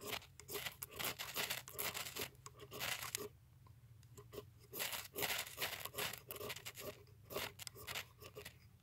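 A hand-held bundle of dry grasses, sagebrush bark and juniper bark being crunched, pulled apart and reshaped, making dense dry rustling and tearing. It comes in two runs of about three seconds each, with a short lull between them.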